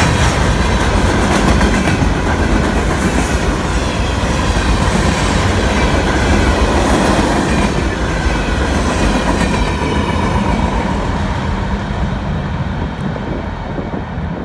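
CSX freight train of loaded open-top hopper cars rolling past at close range, steel wheels clacking and rumbling over the rail joints. The noise dies away near the end as the last car passes.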